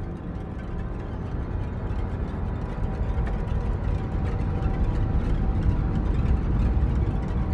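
Deep, ominous rumbling drone from a horror-film soundtrack, slowly swelling louder, with a faint steady tone held above it.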